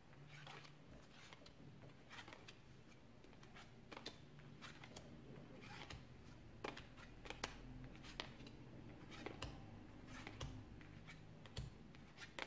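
Playing cards being picked one by one off piles on a felt-covered table and laid onto a stack: faint, irregular light card clicks and slaps.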